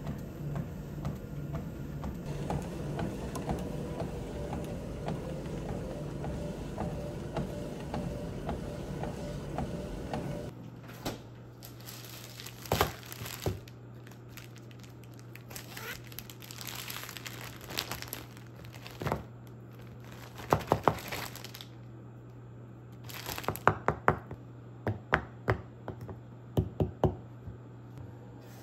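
A Precor treadmill running with a steady hum and even ticking. About ten seconds in this gives way to a plastic zip-top bag crinkling and rustling as it is handled, with clusters of sharp crackles near the end.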